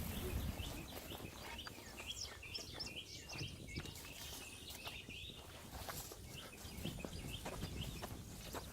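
Wild birds chirping: many short, quick chirps repeating throughout, over a low rumble.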